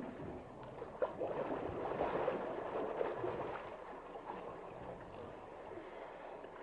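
Water gurgling and sloshing with a busy, speckled bubbling, strongest in the first half and easing off toward the end.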